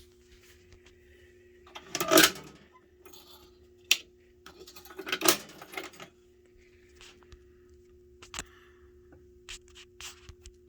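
Scattered clicks and clatter of hard objects being handled, the two loudest about two and five seconds in, over a faint steady hum.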